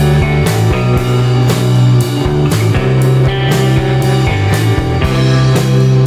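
Rock music with guitar and drums, played at a steady beat.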